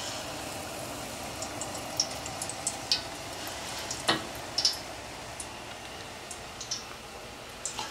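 Battered cod pieces deep-frying in a pot of hot oil: a steady sizzle with scattered sharp pops and crackles.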